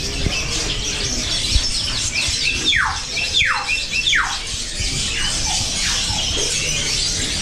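Many caged birds chirping and calling together, with three loud whistles sliding down in pitch one after another, about two and a half to four and a half seconds in, followed by fainter ones.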